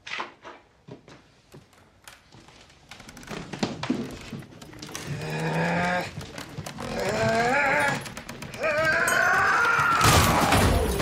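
A few knocks and thuds, then a man letting out three wordless angry roars, each longer and louder than the last: pent-up anger let out.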